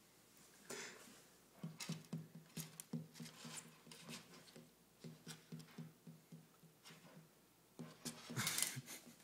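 Cat scratching and shuffling in loose bedding inside a glass tank: a quick run of scratches and taps, with a louder rustling burst near the end.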